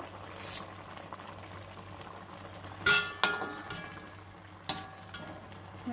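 Perforated metal ladle clinking against a metal cooking pot: two sharp clinks about three seconds in and another near the end, each ringing briefly, over a faint steady hum.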